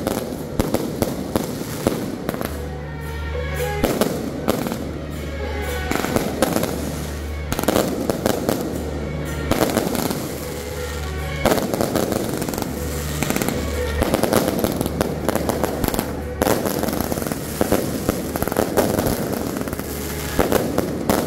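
Aerial fireworks launching and bursting overhead in quick succession: a continuous barrage of sharp bangs and crackling.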